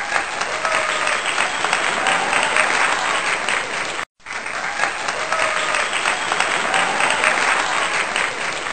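Crowd applause with faint voices in it, a recorded sound effect that cuts out briefly about four seconds in and starts over.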